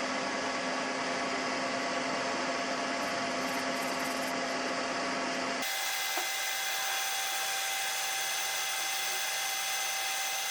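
Metalworking machine tool running steadily, a constant hum with several steady whining tones. About five and a half seconds in the sound switches abruptly to a thinner, higher machine whine with less low rumble.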